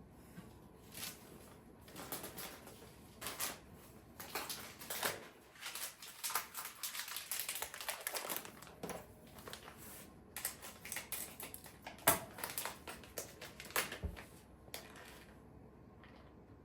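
Irregular light clicks, taps and crinkling of hands handling small objects, in a small room.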